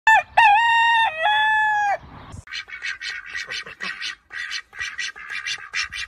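A rooster crowing once, loud, in the first two seconds, followed by a quieter rapid run of short fowl calls, about four a second.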